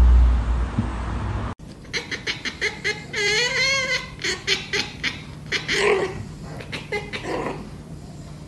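A low rumble for the first second and a half, then a run of quick sharp clicks and a cat's wavering yowl lasting about a second, followed by a few shorter cries.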